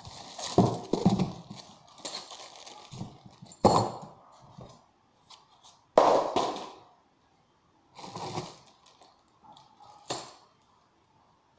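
Cardboard box and packing inserts being handled: irregular knocks, scrapes and rustles, with about five separate bumps and quiet gaps between.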